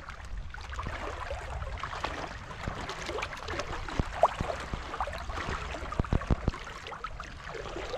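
Shallow seawater splashing and sloshing as someone wades, with a few sharp knocks about four and six seconds in.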